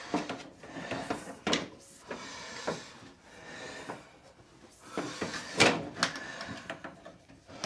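Scattered hard clicks and knocks, with soft rustling between them, of plastic dryer-vent brush rod sections being handled and fitted together. The loudest knock comes a bit over halfway through.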